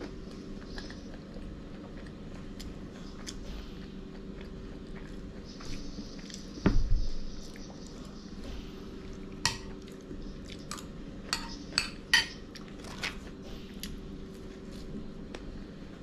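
Tableware sounds of someone eating at a table: a dull knock about seven seconds in, then several sharp clinks of dishes and cutlery over the next few seconds, over a low steady hum.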